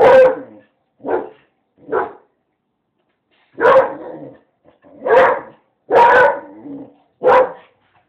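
A dog barking: seven loud, sharp barks, three close together at the start, a short pause, then four more.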